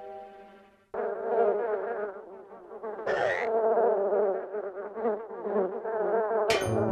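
Cartoon swarm of bees buzzing, a dense wavering drone that starts about a second in as the beehive is taken from the tree. A brief hiss cuts through about three seconds in, and a couple of sharp hits come near the end.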